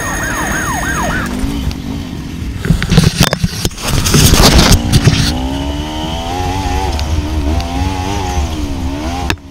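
Side-by-side UTV engine running on a sandy trail, its pitch rising and falling with the throttle over a low rumble. About three seconds in comes a burst of loud knocking and jolting as the machine bounces over the ground.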